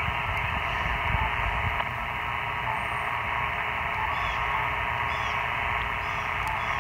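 Receiver static hissing steadily from a Yaesu HF transceiver's speaker, tuned to the 40 m band on lower sideband. Short faint beeps come every second or so as its front-panel buttons are pressed.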